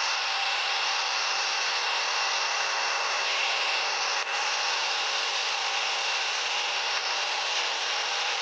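Vacuum cleaner running steadily, a rushing noise with a high whine that shifts slightly about three seconds in.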